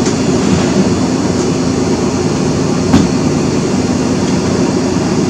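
Steady mechanical drone with a low hum underneath, and one sharp click about three seconds in.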